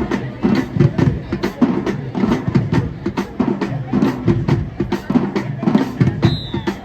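High school marching band playing, driven by its drumline: snare and bass drums beating steadily under the band.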